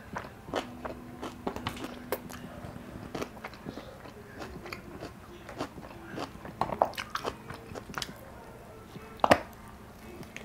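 Mouth sounds of eating a beef shawarma wrap in pita bread: chewing with many small wet clicks and smacks, then a sharp bite into the wrap about nine seconds in, the loudest sound.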